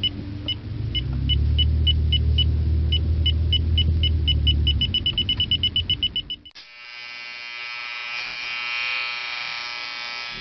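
Car radar detector beeping over a car's low running rumble, the beeps coming faster and faster as the signal it picks up grows stronger. About six and a half seconds in, the beeping gives way to a steady buzzing alert tone.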